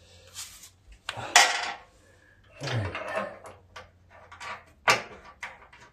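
Irregular clanks, scrapes and rattles of metal hardware and tools being handled on a zero-turn mower's deck brackets as nuts and bolts are fitted, loudest about a second in, with a sharp knock near the end.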